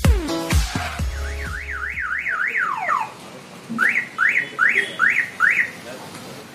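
Electronic car alarm siren cycling through its tones: a fast up-and-down warble, about four cycles a second, then a falling swoop, then five rising whoops in quick succession. Over the first two seconds the tail of electronic music fades out with a deep falling sweep.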